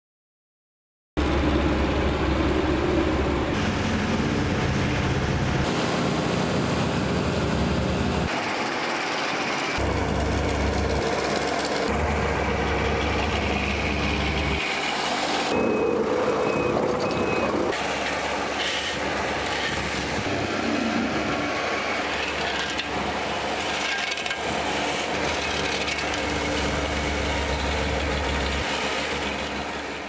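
Heavy road-paving machinery at work: the engines of an asphalt paver and roller running steadily, with scraping and clanking from the laying of fresh asphalt. It starts abruptly about a second in and changes character every few seconds as one short clip cuts to the next.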